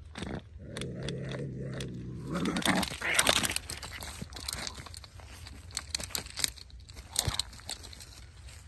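Dry grass and straw crunching and rustling as they are trampled, loudest about two and a half to three and a half seconds in, then scattered crackles and clicks. Before that a low, steady drone runs for the first couple of seconds.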